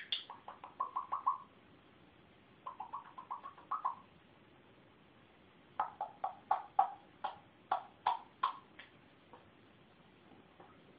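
A pet animal giving rapid strings of short chirping calls in three bouts, each about a second or more long. The last bout is the loudest and longest. The calls sound as if the animal is complaining.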